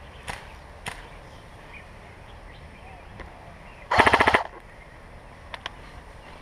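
Airsoft rifle firing one short full-auto burst of about half a second, a rapid even string of shots about four seconds in. A few single sharp clicks come before and after it.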